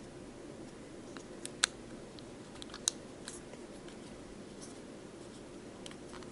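Fingers working the small plastic parts of a GoPro Hero4 Silver action camera: a few short, faint clicks and snaps, the sharpest about one and a half and three seconds in, over low room hiss.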